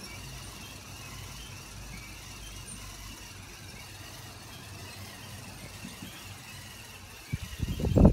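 Small electric motor and gears turning a LEGO carousel model, a steady low hum with a faint thin whine above it. About seven and a half seconds in, louder irregular rumbling and knocking starts.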